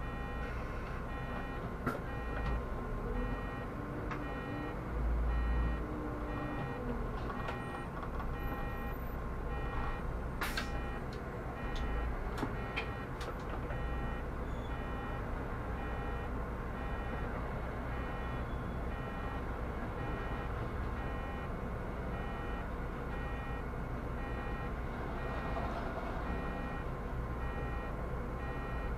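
Solaris Urbino 18 articulated city bus running, a steady rumble of engine and road, with an electronic beep repeating at an even pace throughout and a few sharp clicks about ten seconds in.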